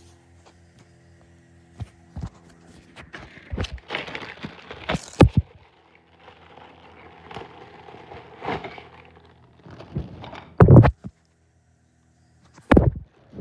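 Plastic courier mailer bag being handled and opened, crinkling and rustling in irregular bursts. Two heavy thumps come near the end.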